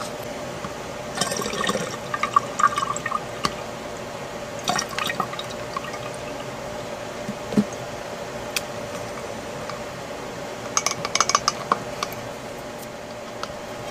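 Liquid poured from a glass jar through a funnel into a glass bottle as it fills. Clusters of light glass clinks and knocks come about a second in, around five seconds in, and again near eleven seconds as the jar and funnel are handled against the bottle.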